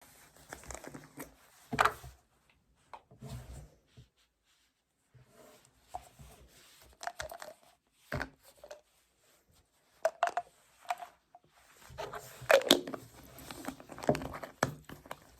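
Handling noises: rustling, crinkling and sharp knocks in short separate bursts, with silent gaps between them and a busier stretch near the end.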